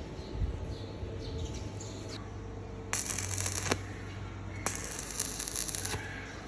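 Light metallic clinks of small power steering pump parts being handled on the bench, with two bursts of hissing about three and five seconds in, the second one longer.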